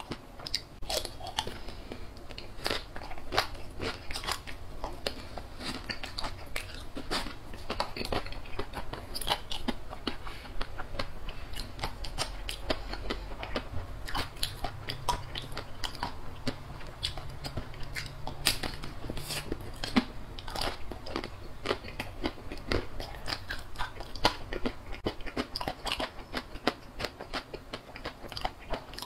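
Close-miked biting and chewing of a frozen chocolate-coated banana on a stick. The hard chocolate shell and crushed peanuts crunch with many quick sharp cracks all through.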